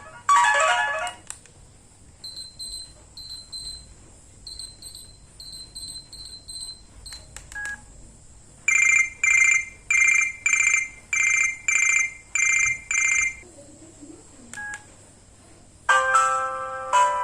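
Built-in ringtones of a Strawberry ST22 phone playing one after another through its small speaker. A melodic tone ends just after the start. Then come short high beeps in small groups, then eight evenly spaced rings about every 0.6 s, a few single blips, and near the end a new melodic ringtone begins.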